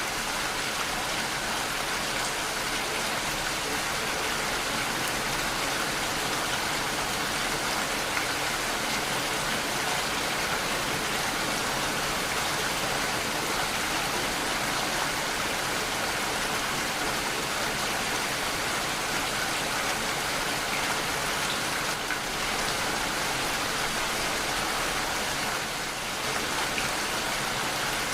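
Steady rainfall, an even hiss of many drops falling without letup.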